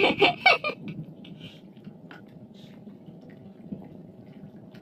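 Faint dripping and trickling water, with scattered soft ticks, as a fine fishing net is fed by hand over the side of a small boat.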